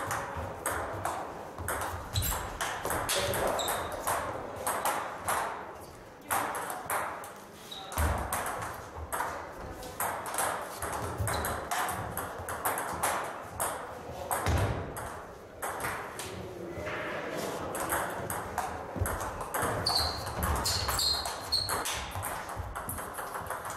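Table tennis balls clicking on bats and on the table in back-and-forth rallies, in irregular runs of quick ticks, with strokes from two tables overlapping.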